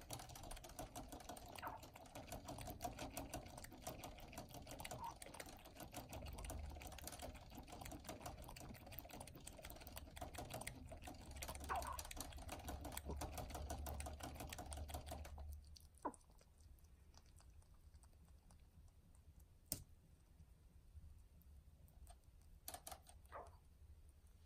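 Rabbit lapping at the metal drinking tube of a cage water bottle, making rapid, steady clicking. The clicking stops suddenly about two thirds of the way through, leaving a few scattered single clicks.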